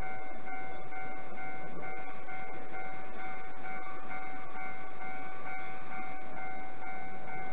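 Railway station's electronic departure buzzer sounding a steady, unbroken tone at one pitch.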